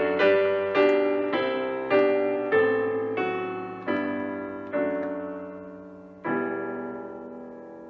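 Piano playing the closing bars of a hymn tune as a series of chords that slow down, ending on a final chord struck about six seconds in and left to ring out.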